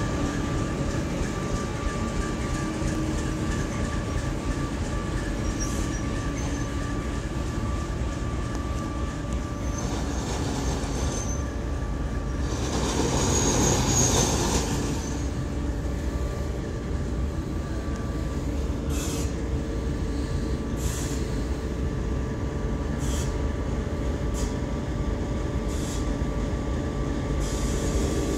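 Two coupled TEP70 diesel passenger locomotives running as a double-header. Their diesel engines give a steady rumble and whine that swells loudest about halfway through as they pass. The passenger coaches then roll by, with their wheels clacking over rail joints at uneven intervals.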